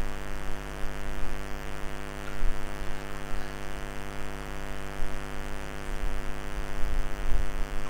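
Steady electrical mains hum: a low drone made of many even tones held at one unchanging pitch.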